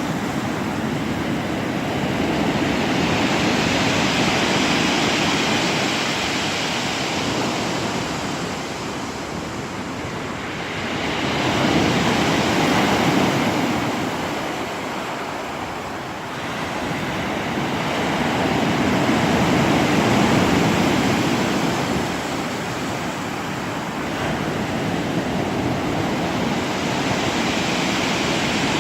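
Sea waves breaking on the shore in slow surges: the rush of surf swells up and dies back about every 7 to 8 seconds.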